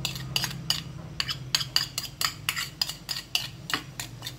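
Metal spoon scraping and knocking against a small ceramic bowl to get the last of the chilli sauce out: rapid clinks, about five a second, over a low steady hum. The clinks stop near the end.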